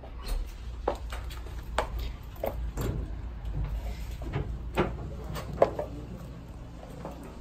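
A hinged door rattling as it is tugged sideways by its brass lever handle as if it slid, then swung open, giving a string of irregular clicks and knocks, with footsteps on a hard floor. A low steady hum runs underneath.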